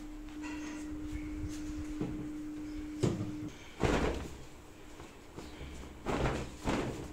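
A bedsheet being shaken and flapped out, giving several sharp swishing flaps, the loudest about four seconds in, over a steady low hum.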